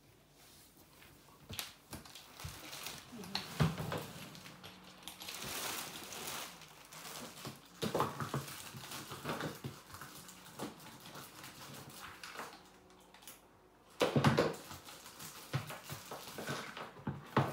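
Irregular knocks, clatter and rustling as wooden legs are handled and fitted into a baby changing-table tray during assembly, with the loudest burst about fourteen seconds in.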